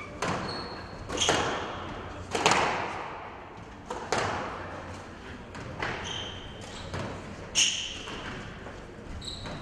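Squash rally: a squash ball struck by rackets and hitting the court walls, sharp cracks about once a second, each echoing. Short high squeaks of court shoes on the floor come between the hits.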